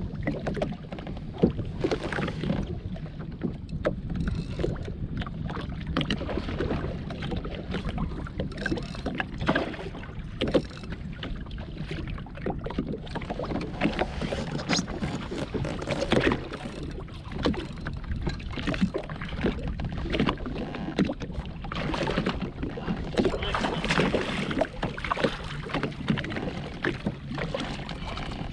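Water slapping and splashing against the hull of a jetski drifting at sea, with wind buffeting the microphone and many short knocks scattered throughout.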